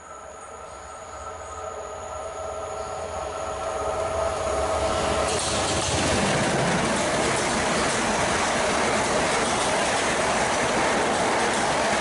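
Southern Class 377 Electrostar electric multiple unit running through at speed. A faint steady whine as it approaches builds over about five seconds into the loud, even rush of wheels on rail as the long train passes.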